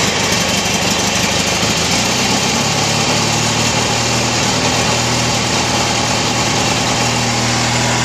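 18.5 hp Briggs & Stratton engine of a Yardman/MTD lawn tractor running steadily at part throttle, shortly after a cold start on choke. Its note changes slightly about three seconds in.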